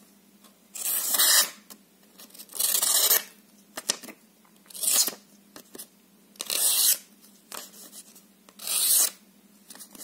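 A cheap folding pocket knife blade slices through a hand-held sheet of paper in five short strokes about two seconds apart. Each stroke is a clean cut, a sign of a sharp blade.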